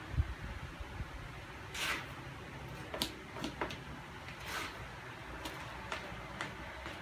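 A cat pawing and digging in cat litter in a plastic litter box: short, irregular scratchy rasps of litter being raked, roughly one a second. There is a low thump just after the start.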